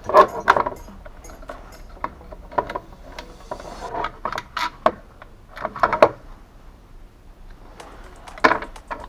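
Small metallic clicks and rattles from a hand-worked UAZ Hunter door lock mechanism, in several short clusters with pauses between them.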